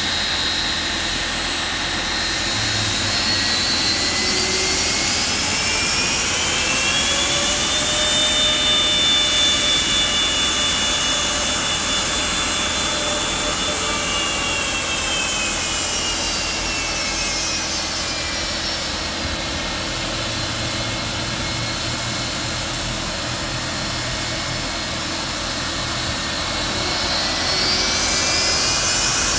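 Boeing 757-200's jet engines running at taxi power: a steady rumble under a high turbine whine. The whine climbs in pitch over the first several seconds, holds, sinks back about twenty seconds in, and rises again near the end.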